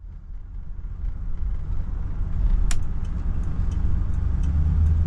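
1977 Ford LTD driving on the road: steady low engine and road rumble that fades in after an edit and grows a little stronger near the end, with one sharp click about halfway through.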